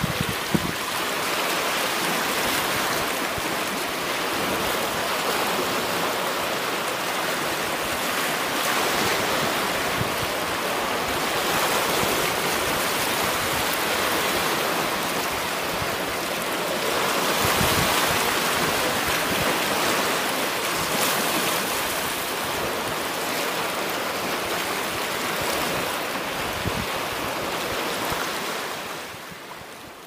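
Small waves lapping and washing against shoreline rocks: a steady water wash that swells and eases slowly, fading out near the end.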